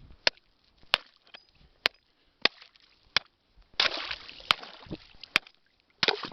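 A series of about seven sharp, irregularly spaced knocks, with short bursts of splashing or scraping noise a little before four seconds and again near the end.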